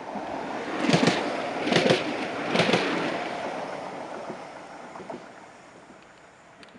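Electric tram passing by, its wheels clattering three times over a rail joint in the first three seconds, then the running rumble fading as it moves away.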